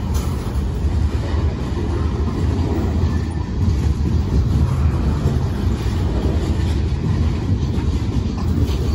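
Covered hopper cars of a freight train rolling past close by: a loud, steady rumble of steel wheels on the rails.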